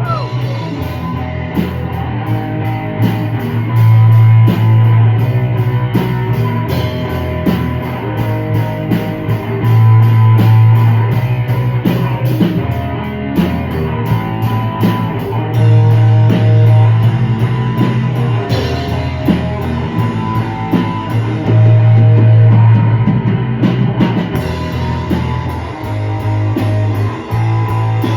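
Rock band playing an instrumental passage with guitar, bass and drum kit and no singing; the bass swells louder about every six seconds.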